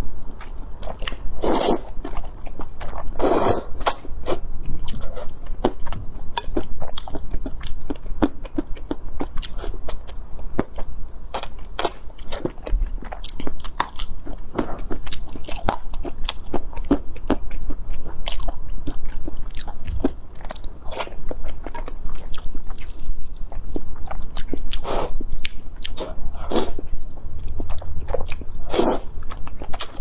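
Close-miked eating of instant noodles: noodles slurped up in several loud, hissing pulls, with wet chewing and smacking clicks in between.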